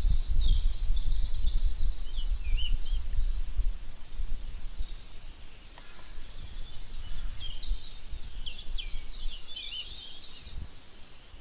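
Many small birds chirping and twittering in quick short calls over a low rumbling background noise that fades away through the stretch.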